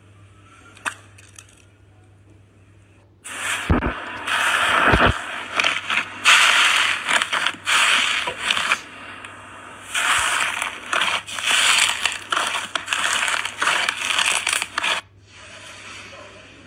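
Slime being squeezed and worked by hand, crackling and popping with many quick clicks in uneven bursts. It starts about three seconds in and stops shortly before the end.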